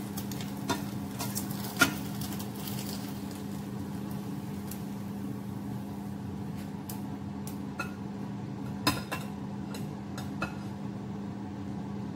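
A metal spatula and fork tapping and scraping in a non-stick frying pan as a cooked egg is lifted out onto a plate, with a few sharp clinks, the loudest about two seconds in and again near nine seconds. A steady low hum runs underneath.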